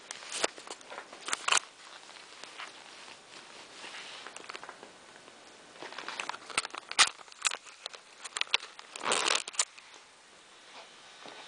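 Close handling noise from a camera being held and moved: irregular rustles, scrapes and sharp clicks, with a quieter stretch in the middle and a longer rustle about nine seconds in.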